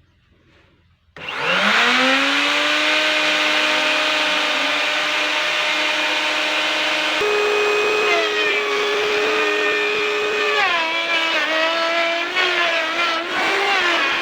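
Electric wood router switched on, its motor spinning up to a steady high whine, then running on with the pitch stepping up about halfway through and sagging and wavering near the end as it cuts a moulding profile into the wood.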